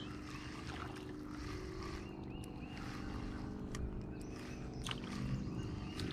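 A steady low mechanical hum, with a few faint clicks and a short high chirp about two seconds in.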